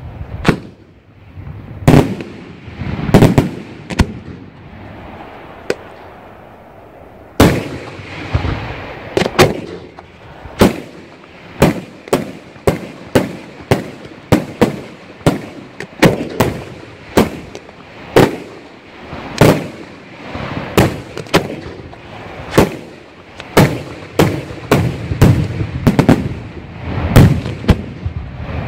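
Aerial firework shells bursting: sharp bangs, each with a rumbling echo. A few come widely spaced at first, then from about a quarter of the way in a rapid, steady run of one or two bangs a second.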